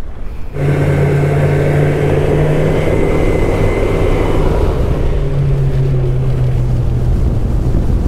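Motorboat engine running steadily under way, over a broad rush of wind and water. It starts suddenly about half a second in, and its pitch dips slightly about five seconds in.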